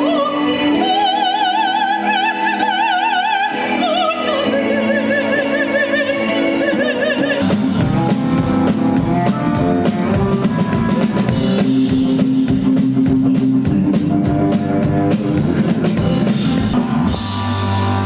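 Music: a sung melody with strong vibrato for about the first seven seconds, then a full band with a steady drum beat.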